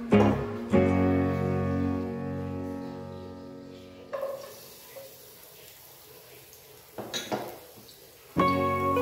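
Background guitar music, its held notes fading out over the first few seconds. About four seconds in, sliced garlic and shallots drop into hot oil in a pan and start a faint sizzle, with a couple of light knocks near seven seconds. The guitar music starts again just before the end.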